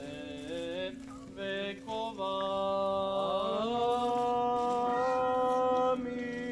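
Orthodox liturgical chant sung in response to the priest's prayer. The voices hold long notes and move slowly from pitch to pitch over a steady, unbroken lower drone.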